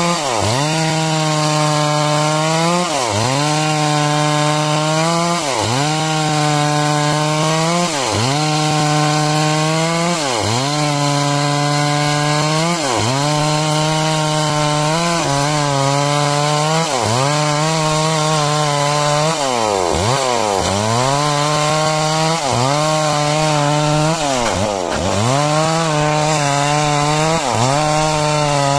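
Two-stroke chainsaw running at high speed while cutting timber into beams. Its pitch dips sharply and recovers about every two and a half seconds.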